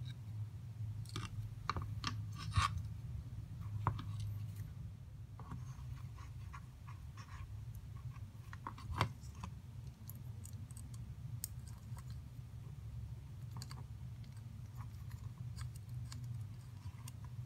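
Small plastic kit parts and thin wires being handled: scattered light clicks and rustles, a few sharper clicks, over a steady low hum.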